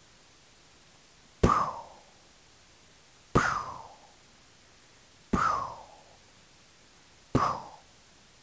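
Four gunshot sound effects, evenly spaced about two seconds apart, each a sharp bang that dies away within half a second.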